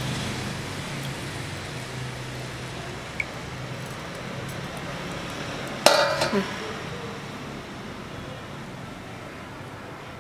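Small fish being gutted by hand over stainless steel basins, with one sharp metallic clank against a basin about six seconds in, ringing briefly. A low engine hum in the background fades out by the middle.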